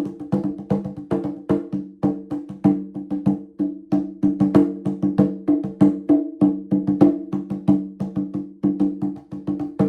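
Instrumental music of quick, short struck notes in a steady rhythm, with a few pitches repeating over and over.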